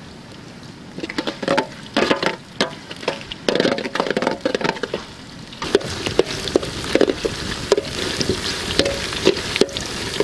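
Chopped onions sizzling as they fry in a metal pot over a wood fire, with a metal spoon scraping and clicking against the pot as they are stirred. The sizzle grows steadier in the second half.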